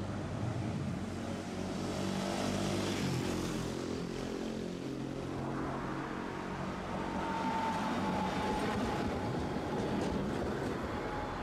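Road traffic running past a streetcar stop, with a Tosaden tram rolling in on the near track towards the end, a faint high whine from about seven seconds in.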